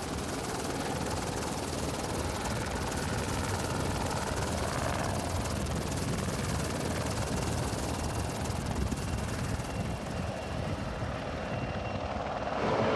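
Airbus A220-300 jetliner's Pratt & Whitney PW1500G geared turbofan engines running at taxi power, a steady jet rumble and hiss as the aircraft rolls along the apron.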